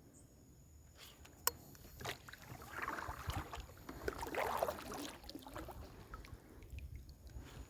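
Water splashing and sloshing around a fishing kayak, with a sharp knock about a second and a half in and a few lighter knocks of gear on the boat.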